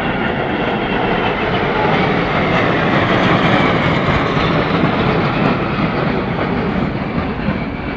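Jet aircraft flying past overhead in formation, a large transport jet with smaller jets trailing smoke: a loud, rushing roar that swells to a peak around the middle, its pitch sliding slightly down as they pass, then eases off toward the end.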